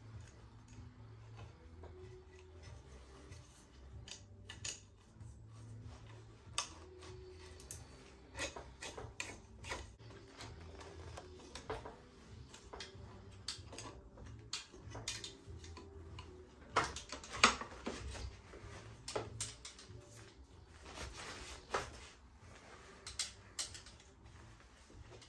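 Hands handling a carbon one-piece handlebar and stem and its brake hoses: irregular clicks, taps and rustles as the hoses are pushed into the stem and the slack is pulled through, with a few sharper knocks about two-thirds of the way through, over a steady low hum.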